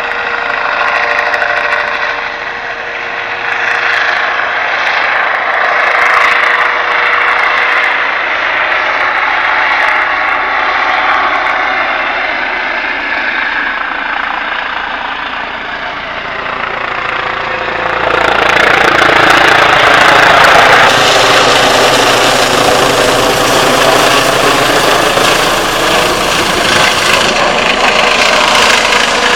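Air ambulance helicopter flying close by as it comes in to land, its rotor and turbine making a steady drone that grows louder about eighteen seconds in as it draws nearer.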